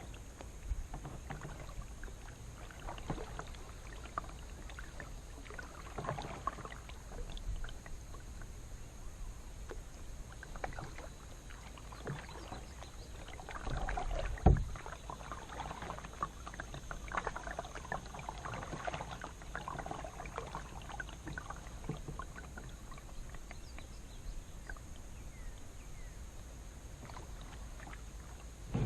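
Kayak being paddled: the paddle blades dip into the water with small splashes and clicks throughout, and one sharp knock comes about halfway through.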